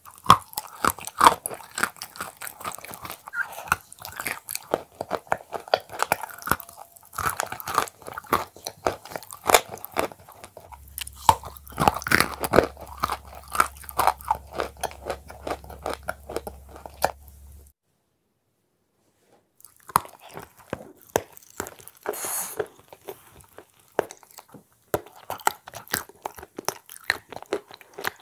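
Close-miked eating: a cookie-like food coated in a thick paste being bitten and chewed, with many sharp crackles and clicks. The sound drops out for about two seconds a little past the middle.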